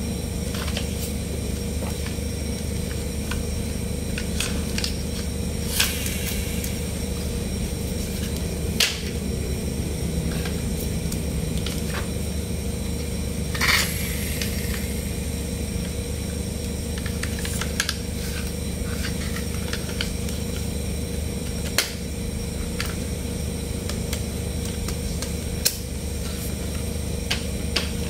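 Plastic toy trucks being handled and set down, giving a handful of sharp plastic clicks and knocks spaced several seconds apart, over a steady background hum.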